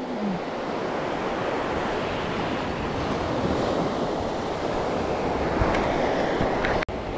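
Steady wash of surf breaking on a beach, with wind rumbling on the microphone. The sound drops out for an instant near the end.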